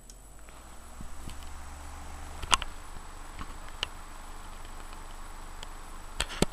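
Electric fan starting up: a low motor hum comes on and the steady rush of air builds over the first second, then runs on. Sharp clicks sound about two and a half seconds in, once more a second later, and twice near the end.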